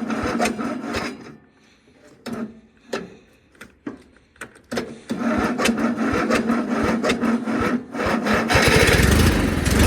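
Starter cranking the engine of a 1997 Yard Machines (MTD) riding lawnmower on a cold start with a low battery boosted by a jump box. There are two bouts of rhythmic cranking, with a pause of a few seconds between them that holds scattered clicks. Near the end the sound grows louder and deeper.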